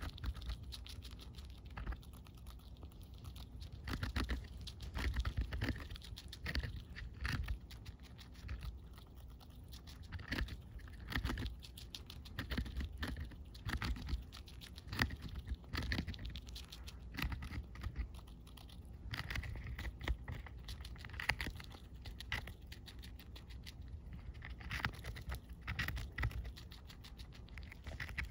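A pet dumbo rat gnawing and chewing a whole sweet red pepper: a long, irregular run of small crisp clicks and crunches as its teeth bite into the pepper's skin and flesh, with louder clusters every few seconds.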